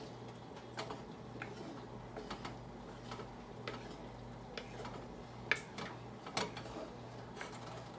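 Wooden spatula stirring thick meat sauce in a nonstick pan, knocking against the pan in irregular light clicks, with two louder knocks a little past the middle.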